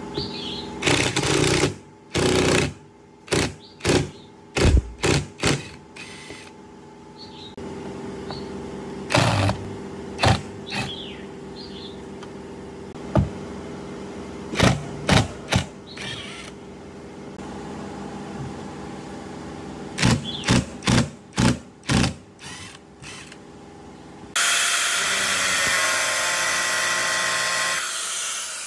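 Power drill with a screwdriver bit backing out the rusty screws of a speaker's driver rings, running in repeated short spurts. Near the end an angle grinder runs steadily and loudly for about four seconds.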